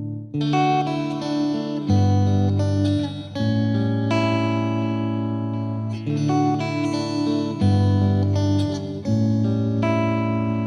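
Background music: guitar-led instrumental with sustained notes, the chord changing every second or two.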